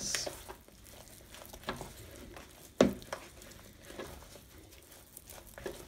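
Very wet bread dough being mixed and scraped around a bowl with a dough scraper: soft sticky squelching and scraping, with small ticks and one sharp knock a little under three seconds in.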